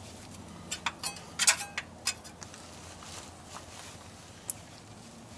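Hand tools clicking and scraping against metal while working an oil pan loose: a quick cluster of sharp clicks, some briefly ringing, in the first couple of seconds, then one more click near the end, over a low steady hum.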